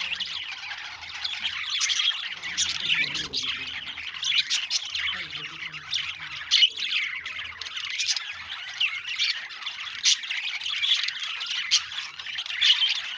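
Budgerigars chirping and chattering without a break: a dense, high warbling with frequent short, sharp chirps standing out above it.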